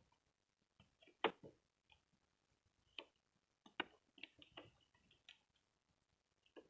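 Light clicks and taps of a mini toy refrigerator and its miniature items being handled: one sharper click about a second in, then a quick run of taps around four to five seconds.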